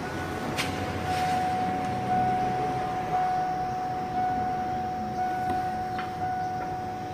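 A steady, high electronic tone, with a few light clicks from hands working at wiring under a van's dashboard.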